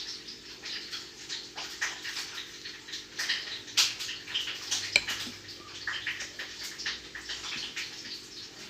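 Soft, moist dough being worked and sealed by hand: a run of irregular small sticky slaps, squishes and clicks, over a faint steady hum.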